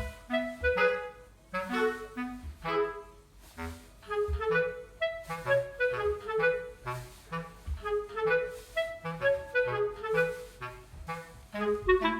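Background music: a light tune of short, separate notes led by a clarinet-like woodwind, over a line of low bass notes.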